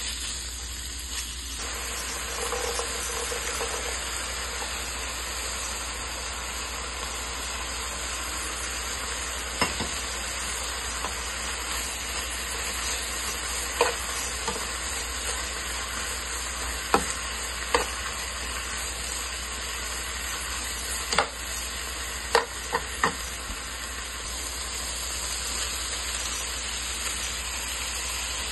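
Chopped beef and diced sausage frying with a steady sizzle in a nonstick pan. A metal spatula stirs them, knocking sharply against the pan several times through the middle.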